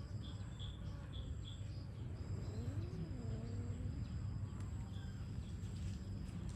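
Faint outdoor ambience: a steady low hum with a quick run of about five short, high chirps near the start and a faint rising-and-falling call in the middle.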